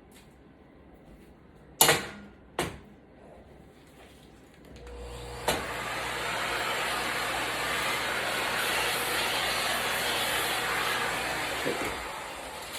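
Two sharp clicks, then a canister vacuum starts about four seconds in, runs steadily with a low motor hum for about seven seconds, and shuts off near the end, picking up shards from a shattered iPad screen.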